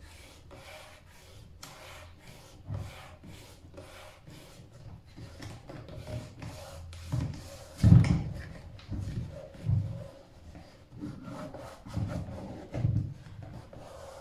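Fingers rubbing a vinyl wrap sticker down onto a hard case in quick scratchy strokes, about three a second, to press out bubbles and creases. In the second half a few low thumps come from the case being handled, the loudest about eight seconds in.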